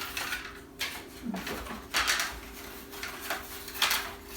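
Repeated short rustling noises of things being handled, about one or two a second, over a faint steady hum.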